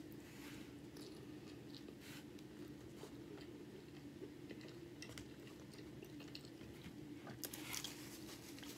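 Faint close-up chewing and biting of a chili cheese hot dog in a soft bun: soft wet mouth clicks and smacks, more of them near the end, over a steady low hum.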